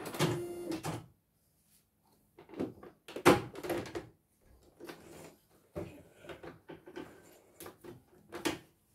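A CNY computerised embroidery machine runs for about a second and stops, then come scattered clicks and knocks of its plastic embroidery hoop being unclipped and lifted off the embroidery arm, the loudest about three seconds in.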